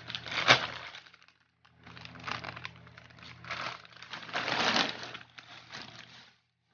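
Plastic bags and snack wrappers crinkling and rustling in irregular bursts as they are handled and pulled about, with a sharp crackle about half a second in.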